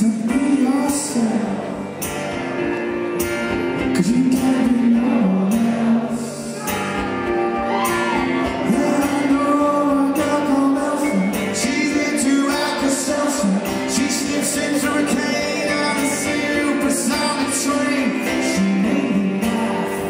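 Live rock performance: a man singing with a strummed acoustic guitar, heard in a large hall.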